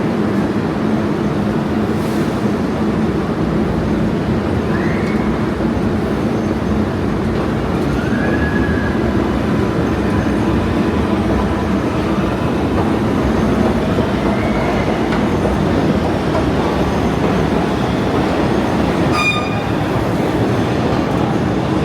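New York City subway train running: a steady loud rumble with a few brief, faint high squeals from the wheels on the rails, and a short sharp high ping near the end.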